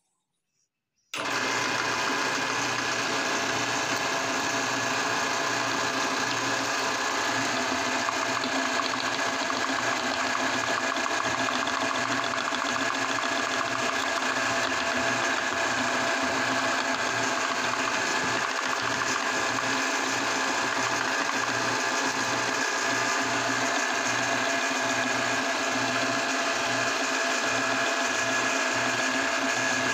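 Meat grinder running with a steady, continuous mechanical whir while grinding chocolate bars. It starts abruptly about a second in.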